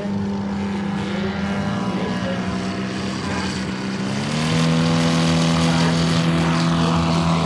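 Propeller engines of large radio-controlled model airplanes running steadily. About four seconds in, a second, louder engine joins at a slightly different pitch as a red-and-white high-wing model takes off at full power.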